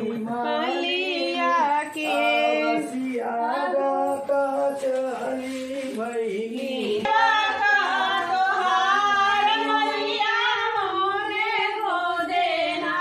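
Several women singing together, a wavering melody held on long notes.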